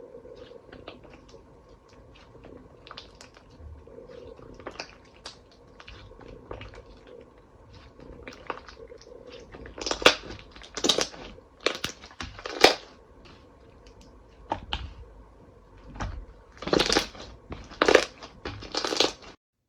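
Slime being squeezed and pressed by hand: soft scattered crackles and clicks at first, then from about halfway a series of louder crackling, crunchy squishes, each lasting about half a second.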